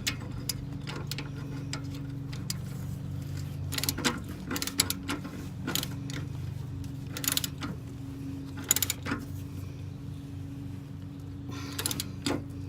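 Hand tools working on metal: clusters of short clicks and clatter, ratchet-like, every few seconds over a steady low hum.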